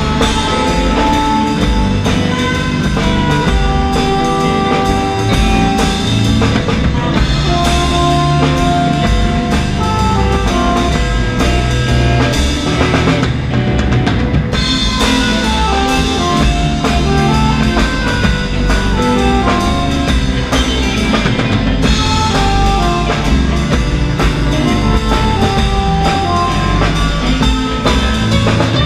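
Live band music: an alto saxophone plays the melody over drum kit, electric bass and electric guitar.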